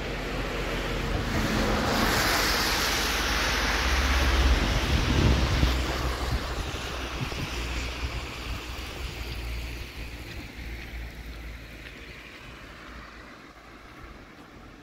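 Tyre hiss of a vehicle passing on a wet road. It swells over the first couple of seconds, is loudest around the middle with a low rumble, then fades slowly away.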